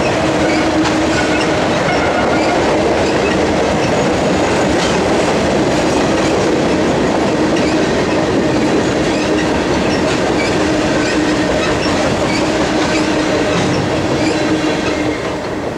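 Freight cars rolling past on curving track: steady rumble and clickety-clack of the wheels, with a faint steady wheel squeal. The sound drops off near the end as the last car goes by.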